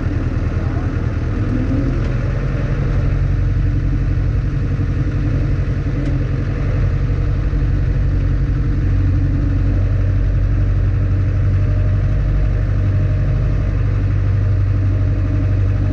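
Zetor 6711 tractor's four-cylinder diesel engine running steadily, heard from inside the cab as the tractor drives slowly, getting a little louder about seven seconds in.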